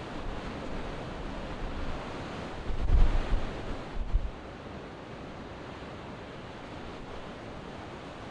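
Surf breaking and wind blowing over open sea, with wind gusting on the microphone as a low rumble about three seconds in and briefly again a second later.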